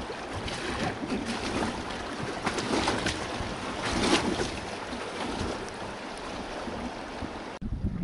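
River water splashing and lapping around an inflatable raft's pontoons, with paddle strokes and wind buffeting the microphone. The sound changes abruptly shortly before the end.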